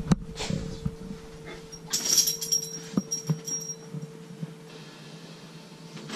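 A dog whimpering, excited at its owners coming home, with a few sharp knocks and rustles over a faint steady hum.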